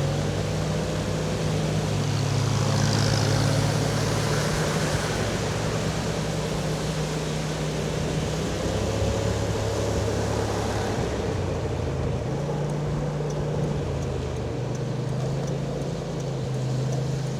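Kymco AK550 maxiscooter's 550 cc parallel-twin engine running at a steady cruise, heard from the rider's seat under heavy wind rush and wet-road spray. The high hiss eases about two thirds of the way through, and the engine note shifts slightly there.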